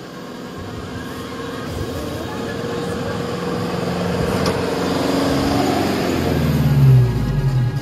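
A four-wheel-drive ute crawling across a timber plank bridge and passing close by, its engine and tyre noise growing steadily louder and loudest as it goes past near the end.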